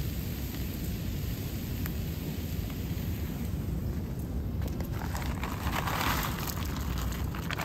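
Dry wood chips shaken from a paper bag onto hot charcoal: a rustling, crackling pour that starts about five seconds in, over a steady low rumble.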